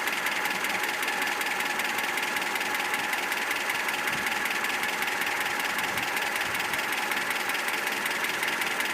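ZMZ-402 inline-four petrol engine idling with a rapid, regular knock that swells and fades. The knock comes from play between the piston pins and connecting rods in all four cylinders.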